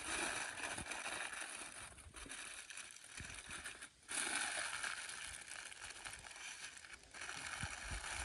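Aluminium foil crinkling and rustling as it is folded and pressed around a whole goose by hand, with a few soft thumps near the end.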